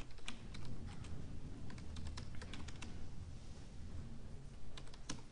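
Typing on a computer keyboard: an irregular run of quick key clicks.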